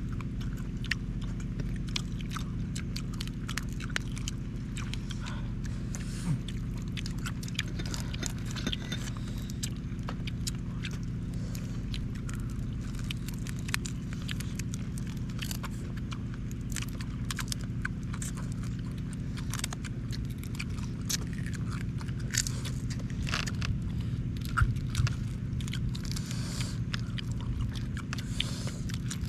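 Small crackles and clicks of grilled mantis shrimp shells being cracked and peeled by hand, with chewing, denser near the end. A steady low hum runs underneath.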